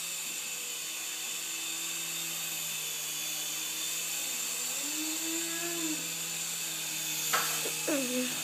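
Small remote-control toy helicopter flying, its electric motor and rotors giving a steady high-pitched whine, with a sharp knock about seven seconds in.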